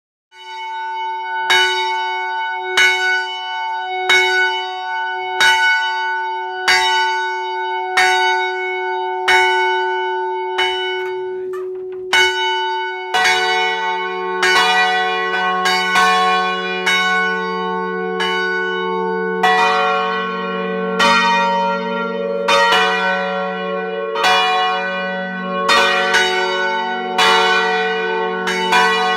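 Church tower bells ringing. At first one bell strikes at a steady pace, about once every second and a quarter, its tone hanging between strokes. About 13 s in, deeper bells join and the strokes come faster and overlap.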